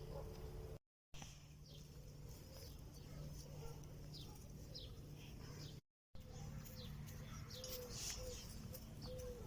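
Small birds chirping outdoors: many short, quick downward chirps, faint over a steady low hum. The sound cuts out completely twice, briefly.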